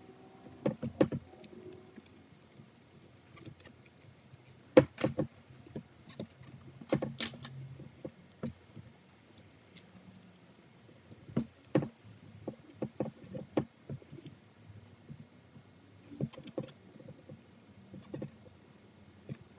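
Scattered snips and clicks, a few of them louder, as peeling leather is trimmed off the rim of a leather-wrapped steering wheel with a small hand cutting tool.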